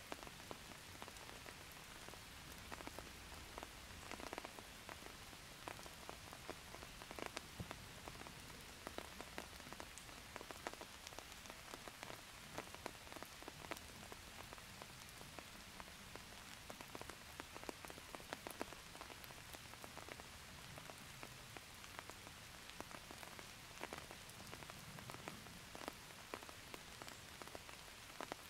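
Rain falling: a faint, steady hiss with many small drops ticking at irregular intervals.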